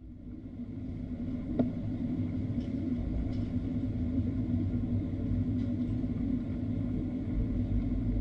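Steady low rumble and hum of an Airbus A320-214 with its CFM56 engines running, fading in and slowly growing louder. A light click about one and a half seconds in.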